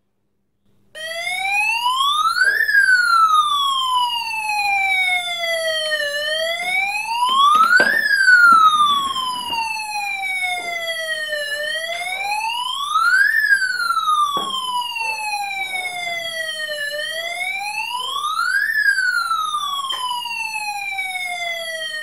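Homemade electronic police siren: a breadboard siren circuit driving a small loudspeaker, switched on about a second in. Its buzzy tone wails slowly up and down, rising for about two seconds and falling for about three, four times over.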